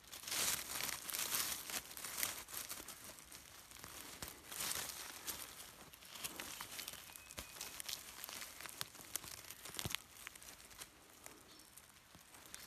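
Dry leaf litter and twigs rustling and crackling as hands dig into the forest floor and pull plants out of the soil, with many small snaps throughout and louder rustling at the start and about four seconds in.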